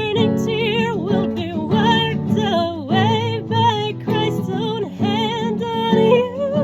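Music: an acoustic guitar-backed song section with no words, a wavering melody line with vibrato carried over the guitar.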